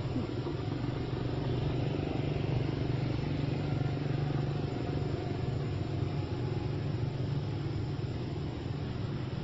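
Steady low rumble, even in level throughout.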